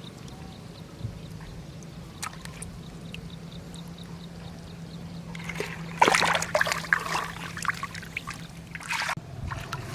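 Shallow water trickling and splashing, with a busy stretch of splashing and sloshing from a little past halfway until near the end. A steady low hum runs underneath.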